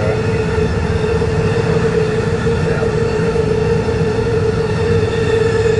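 Empty iron ore train's wagons rolling past on the adjacent track: a steady rumble with a constant mid-pitched hum over it.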